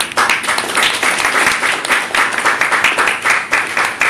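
Audience applauding: many hands clapping densely and steadily.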